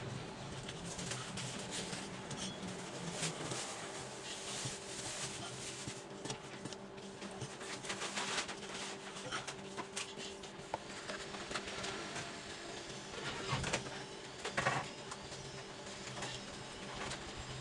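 Knife cutting and chopping braised goose organs on a chopping board: irregular clicks and knocks of the blade on the board, with a few heavier knocks near the end, over a steady background hum.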